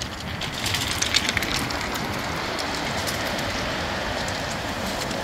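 Waves breaking and washing up a shingle beach: a rushing hiss that swells about half a second in, with pebbles clicking and rattling, over wind rumbling on the microphone.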